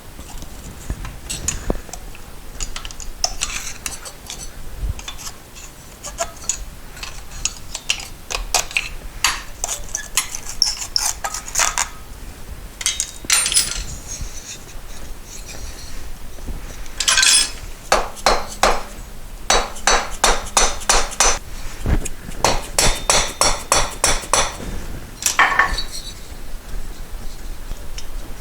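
Metal hand tools and engine parts clinking and clicking during work on a motorcycle engine's cylinder, with several quick runs of even clicks in the second half.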